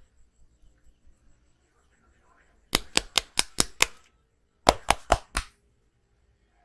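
A barber's hands striking in quick sharp slaps during a head massage: a run of about six rapid slaps, a short pause, then four more.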